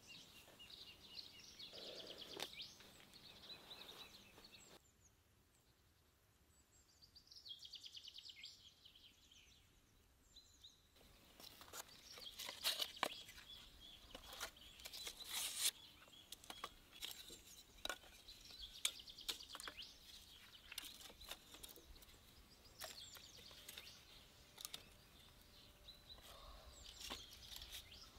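Songbirds chirping on and off. From about eleven seconds in come scattered sharp clicks and light knocks as thin split-wood kindling is stacked over crumpled paper, loudest a little after that.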